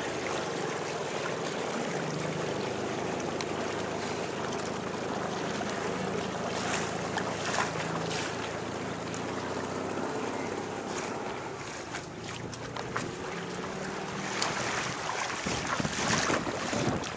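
Wind buffeting the microphone over water lapping and splashing around a small sailing boat, with sharper splashes and gusts near the end.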